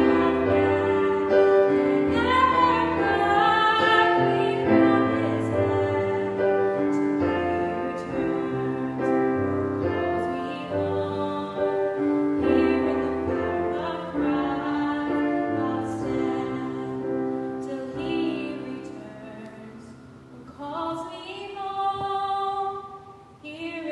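Music: a song with singing over piano accompaniment, sustained notes throughout, growing softer about three-quarters of the way through before picking up again.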